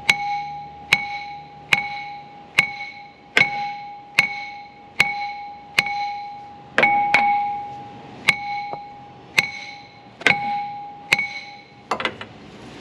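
Hammer striking the steel crankshaft pulley of a CAT 3126 diesel again and again, about one blow a second, each blow ringing with a clear metallic tone. The pulley is stuck fast on the crankshaft and is not coming loose.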